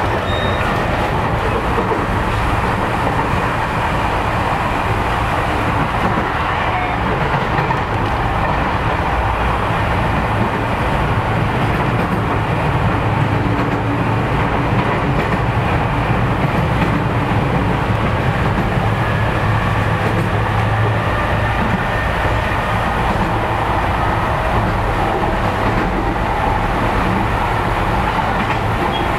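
Narita Line commuter train running along the track, heard from inside the carriage: a steady rumble of wheels on the rails.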